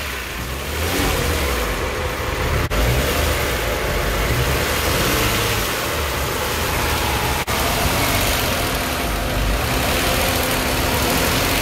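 Kia Stinger GT's twin-turbo V6 running at a slightly raised idle while intake carbon cleaner is drawn in through the PCV line, the revs fluctuating on their own and the engine sounding close to stalling, which is normal while the cleaner is fed in.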